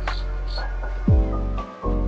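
Background music with a beat of deep bass kicks that drop in pitch, over sustained chords.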